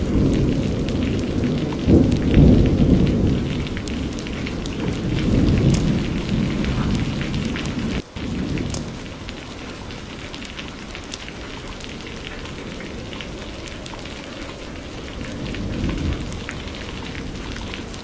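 Steady rain falling, with pattering drops and a low rolling rumble of thunder, loudest about two seconds in. The rumble dies away after a brief break about eight seconds in, leaving the rain patter, and a smaller rumble swells near the end.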